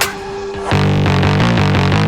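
Background music: a heavy bass passage drops out, and after a short quieter break a new section comes in with a quick, steady beat of plucked-sounding notes.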